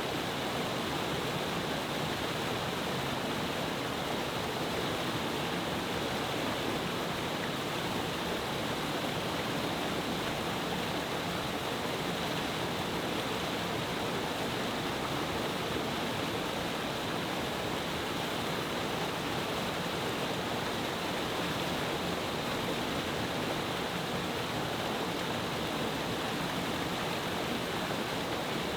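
Steady, unbroken rush of a mountain-stream cascade waterfall, water falling powerfully over several rock tiers.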